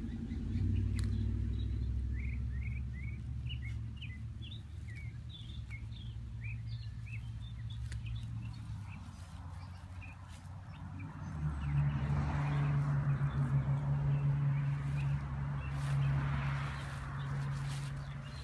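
Birds chirping: a run of short, quick, rising high notes over the first half. Under them runs a low steady hum, which becomes a louder, steady low drone about halfway through and is the loudest sound in the second half.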